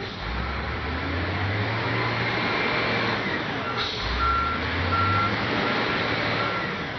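XCMG LW500K wheel loader's diesel engine running as it manoeuvres, its note rising near the start and again about four seconds in. Its reversing alarm sounds a steady series of short beeps in the second half.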